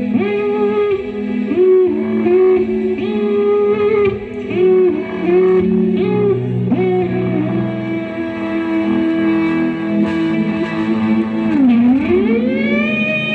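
Electric guitar instrumental music with effects, played through a PA sound system during a sound check. The guitar plays bent, sliding notes, then a long held note; near the end the pitch dips sharply and slides back up.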